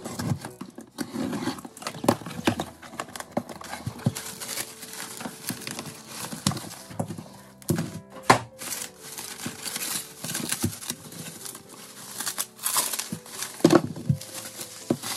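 A utility knife slitting the packing tape on a cardboard box and the cardboard flaps being handled, then bubble wrap crinkling and rustling as the wrapped items are lifted out, with many sharp clicks and knocks. Soft piano background music plays underneath.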